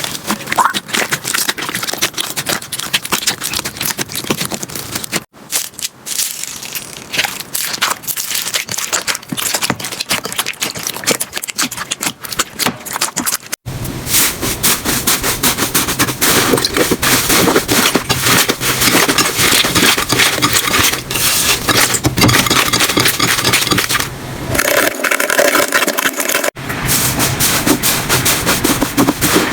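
Slime being squeezed, pressed and stretched by hand, with dense crackling and popping. It comes as four short clips that change abruptly from one to the next.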